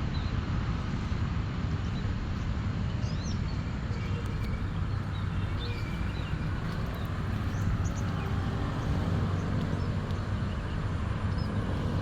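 Steady outdoor rushing noise, heaviest in the low rumble, with small birds chirping faintly now and then.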